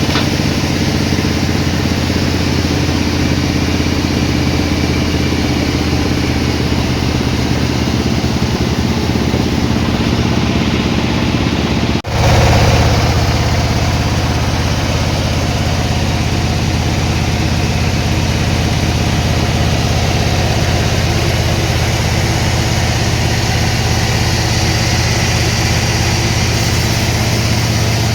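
Engine of sawmill machinery running steadily with a low drone. About halfway through the sound breaks off abruptly and resumes slightly louder at a different pitch.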